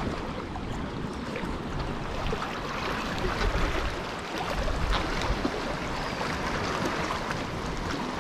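Shallow seawater lapping and trickling around rocks, with wind rumbling on the microphone.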